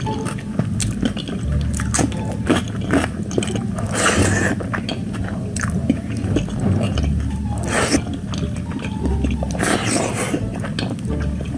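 A person eating close to the microphone: wet chewing with many small mouth clicks, and three louder, sharper bites or crunches spread through.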